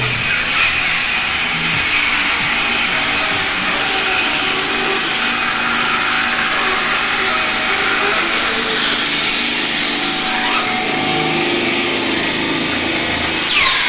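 Horizontal band saw running steadily, its blade sawing through plastic stock.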